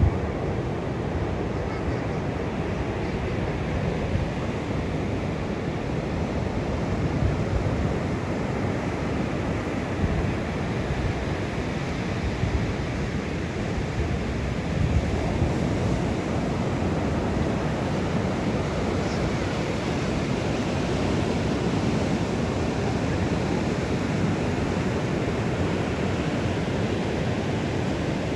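Rough, storm-driven sea surf breaking and rushing continuously under cyclone winds, with wind buffeting the microphone.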